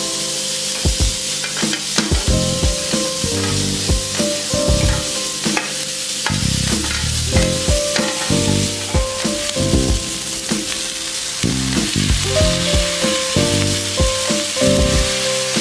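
Beef steak sizzling in a hot pan, with frequent clicks and scrapes of a metal spoon against the pan as mixed vegetables are spooned in beside it. Background music plays throughout.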